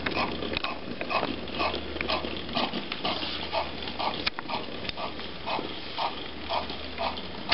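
Hornby B12 model steam locomotive's small motor running under DCC control: a steady hum with a rhythmic grinding pulse about twice a second, and one short click a little past the middle.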